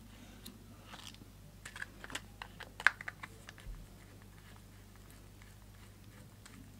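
Small clicks and taps of a screwdriver turning out the screws of a plastic-cased contactor, with one sharper click about three seconds in, stopping about four seconds in.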